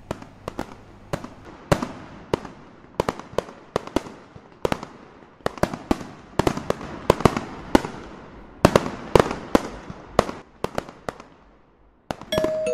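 Fireworks going off: sharp bangs and pops at irregular intervals, a few a second and sometimes in quick clusters, each trailing off in a brief echo. They stop just before the end.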